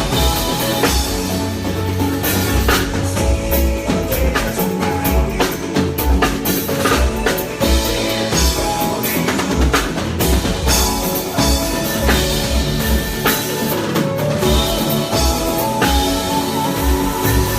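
Live band playing, led by a drum kit with a steady beat under bass and other instruments.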